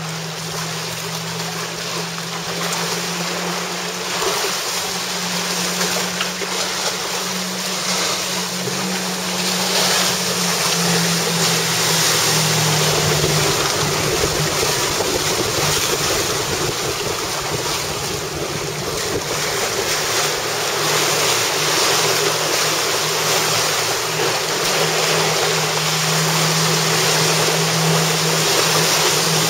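Choppy water and wind, with wind buffeting the microphone hard for several seconds midway, over the steady drone of a boat's outboard engine running at speed.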